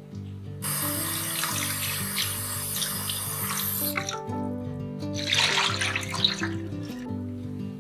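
Kitchen tap running into a stainless steel bowl in the sink for about three seconds as blanched mackerel pieces are rinsed in cold water. About a second later comes a short splash as the water is tipped out of the bowl. Soft guitar background music plays underneath.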